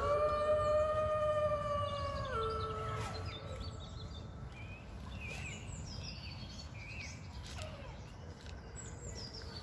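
A loud pitched tone glides up, holds, steps down in pitch about two seconds in and fades out by about three seconds. After it, birds chirp now and then over steady outdoor background noise.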